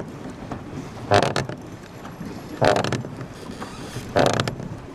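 Pedal boat's pedal drive creaking in a steady rhythm, one short squeak about every second and a half as the pedals turn.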